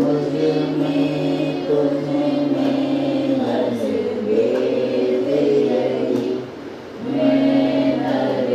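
A group of voices singing a devotional bhajan together in long held notes, with a brief break a little over six seconds in.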